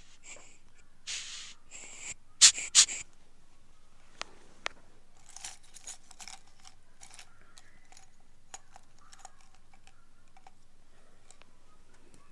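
Close-up scraping and crackling of an ear pick working at dry skin and earwax in an ear canal: brief scrapes about a second in, two loud crackles a little later, then scattered faint clicks and scratches.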